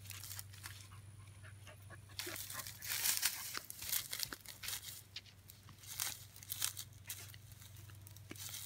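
Rustling and crackling of dry grass and brush being walked through or searched by hand, in irregular bursts that grow heavier about two seconds in.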